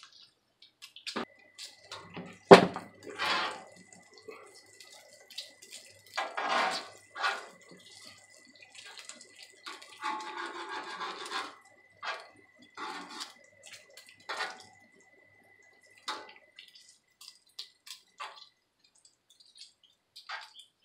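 Bacon sizzling and spitting on a hot flat-top griddle, in irregular bursts as metal tongs turn and move the strips, with a sharp metal click of the tongs about two and a half seconds in.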